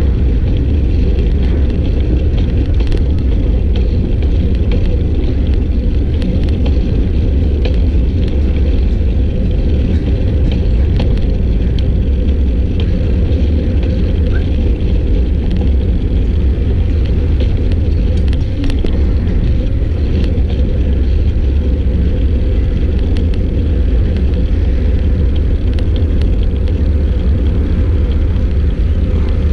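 Steady wind rumble buffeting the microphone of a camera carried along on a moving bicycle, with a few faint ticks.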